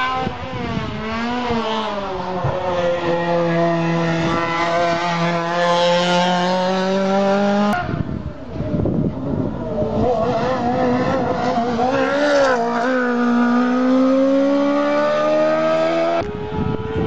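Hillclimb race car engines at hard throttle, each note climbing steadily in pitch with brief dips as the driver shifts or lifts. About halfway through, one car's sound cuts off abruptly and another car's climb takes over.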